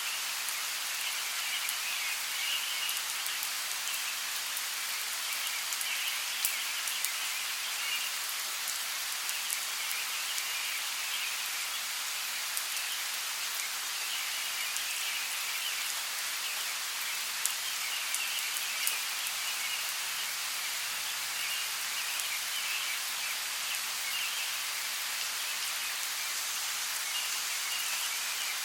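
Steady heavy rain falling in a rainforest, an even hiss with now and then a louder single drop hitting close by. A high, pulsing chorus of animal calls comes and goes behind the rain.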